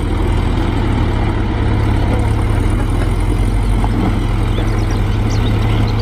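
Loaded dump truck's diesel engine running steadily, a loud, even low hum.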